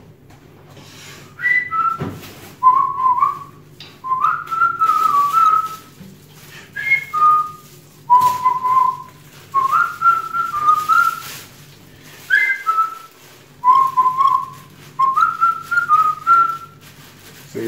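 A person whistling a tune in short phrases of a few notes each, with brief pauses between the phrases.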